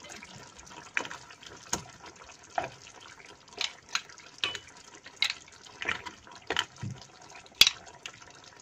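A serving utensil clicking and clinking against mussel shells and the pan, roughly once a second, as seafood is lifted out of the pot onto a plate. Faint liquid sounds from the tomato seafood sauce run underneath.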